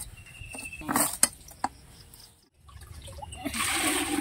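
A few sharp chops of a hand fodder cutter's blade through green fodder onto its wooden block. About two and a half seconds in, water is poured from a metal lota into an aluminium pot, splashing and growing louder near the end.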